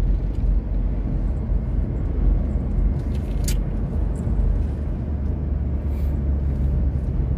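Steady low rumble of a car's engine and tyres on the road, heard from inside the cabin while driving, with one short sharp click about three and a half seconds in.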